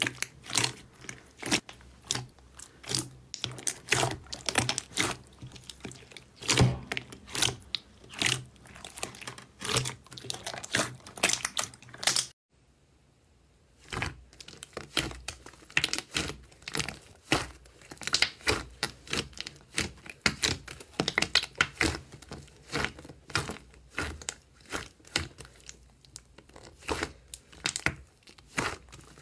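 Hands squeezing and pressing slime in a glass bowl: rapid, irregular sticky clicks and pops as air pockets burst, several a second. About twelve seconds in it stops briefly, then resumes with a thicker slime.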